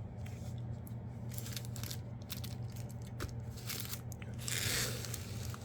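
Foil booster-card packs being handled and shuffled: light crinkling and small clicks, with a louder rustle about four and a half seconds in, over a steady low hum.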